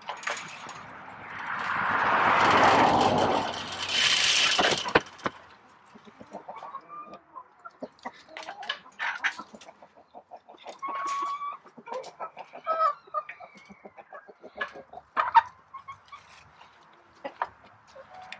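Chickens clucking, with scattered sharp knocks. About a second in, a loud rushing noise swells for about four seconds and then cuts off suddenly.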